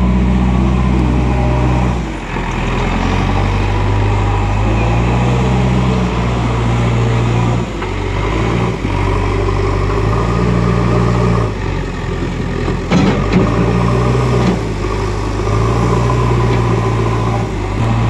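Backhoe loader's diesel engine running under load, its pitch stepping up and down every few seconds as it revs with the digging and loading. A few sharp knocks sound about two-thirds of the way through.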